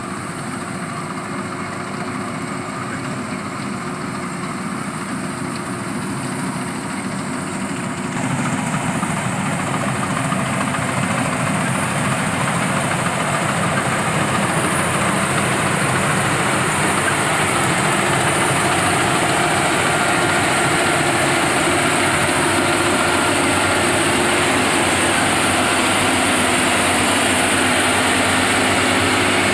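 Engine of a rice-harvesting machine running steadily, growing louder about eight seconds in.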